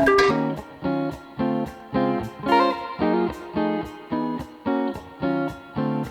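Background music: a guitar picking single notes at a steady pace, about two a second.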